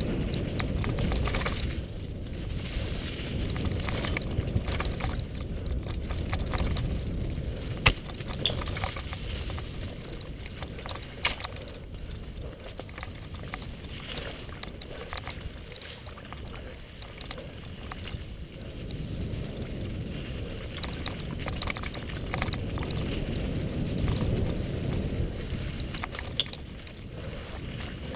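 Mountain bike riding fast along a leaf-covered dirt singletrack: tyres rolling over dirt and dry leaves, bike rattle, and a constant low rumble of wind on the microphone. A few sharp knocks come from bumps in the trail, the loudest about eight seconds in.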